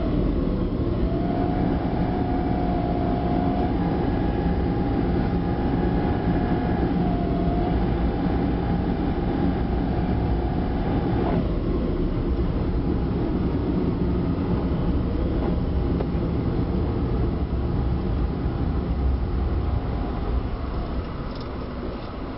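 Vehicle driving along a city street, heard from inside: a steady low rumble with a faint wavering whine that stops about halfway through. The rumble eases off near the end as the vehicle slows for a stop.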